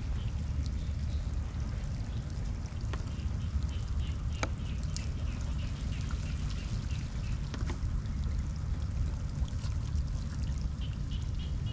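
Shallow floodwater running across a road as light rain falls into it: a steady low rush with scattered drips and splashes. Short high chirping calls of small animals repeat in the background, most clearly in the middle and near the end.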